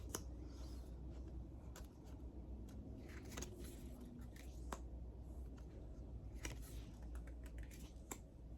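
Tarot cards being handled and looked through: scattered light clicks and taps of card stock, with a few short soft slides of cards.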